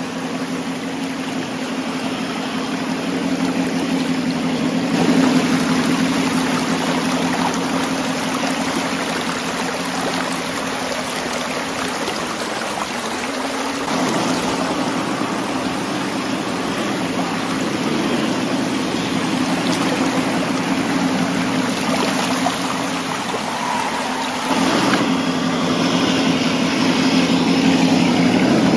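RC rock crawler wading through a rushing stream: the steady whine of its electric motor and gears under the sound of rushing, splashing water. The whine shifts in pitch a few times as the throttle changes.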